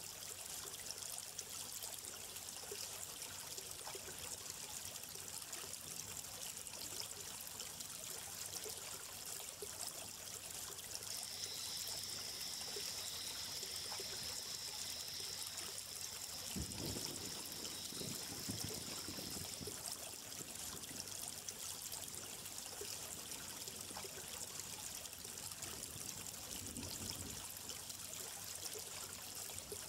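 A small stream trickling and flowing steadily. A faint high steady tone sounds for several seconds in the middle, and brief low rumbles come about two-thirds of the way in.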